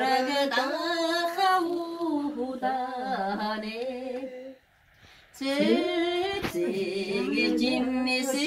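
A woman singing unaccompanied, holding notes with vibrato, with a short pause for breath about halfway through.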